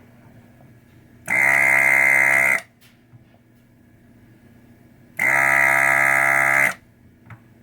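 Desoldering gun's vacuum pump buzzing twice, about a second and a half each time, switched on and off sharply as the trigger is pulled to suck molten solder off the board.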